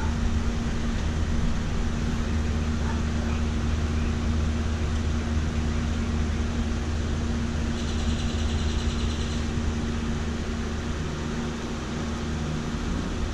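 Steady low mechanical hum, like a motor-driven fan, with a short patch of faint rapid ticking about eight seconds in.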